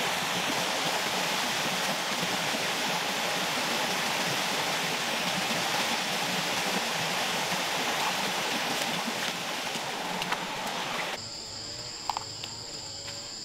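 Shallow forest stream and small waterfall running, a steady rush of water. About eleven seconds in, it cuts off abruptly to a steady high-pitched drone of insects.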